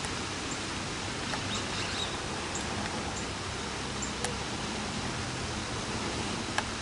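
Steady, even rushing noise with a few faint short clicks scattered through it.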